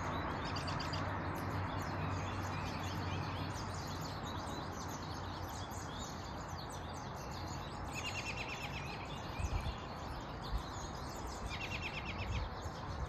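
Small songbirds chirping and calling over a steady outdoor hiss, with two short, rapid trills of repeated notes in the second half. A few low thumps come in the middle and near the end.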